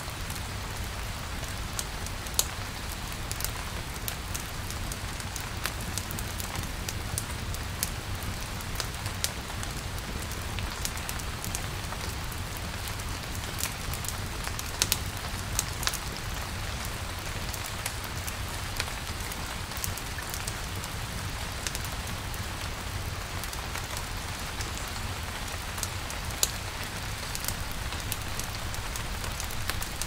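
Steady rain falling, an even hiss with many scattered sharp ticks of drops landing.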